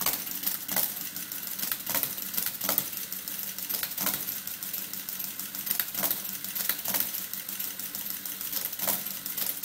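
NISA electric mechanical calculator running an automatic division: its stepped-drum mechanism clatters rapidly and continuously over the hum of the electric motor. Louder clacks come every second or so as the carriage jumps to the next position. The division works by repeated subtraction, with the motor reversing to add back after each underflow.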